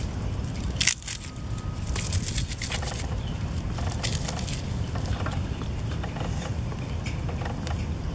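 Plant stalks and grass being handled, bent and torn by hand, giving scattered rustles and crackles, with one sharp crack about a second in and a denser crackling burst around two to three seconds in. A steady low rumble of wind on the microphone runs underneath.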